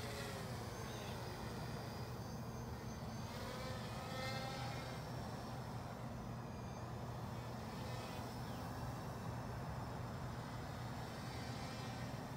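Small VTOL drone hovering, its propellers giving a steady hum with a brief wavering in pitch a few seconds in.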